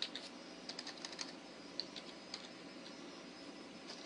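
Computer keyboard being typed on: a scattered handful of faint keystrokes at an uneven pace over faint steady background noise.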